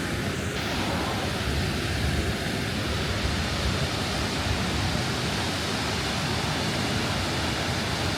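Large waterfall on the Krka River, falling water rushing in a steady, even roar.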